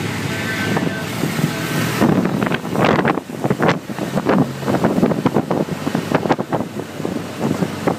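Inside a moving bus with the door and windows open: engine and road noise with wind blowing past. From about two seconds in, frequent irregular rattles and knocks as the bus bounces along.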